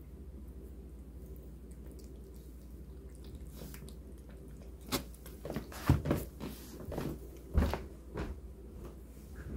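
Bengal cat eating wet food from a stainless steel bowl: faint at first, then about halfway a run of sharp, wet chewing and licking clicks, two of them loud.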